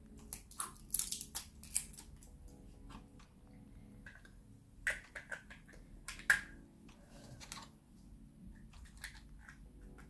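Hands handling a small plastic digital thermometer-hygrometer and its battery safety tab: scattered light clicks, taps and rustles, with a few sharper clicks about a second in and again around five and six seconds in.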